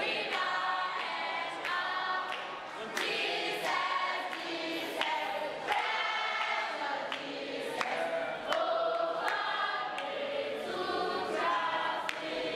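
A group of schoolgirls singing together as a choir, with hand claps.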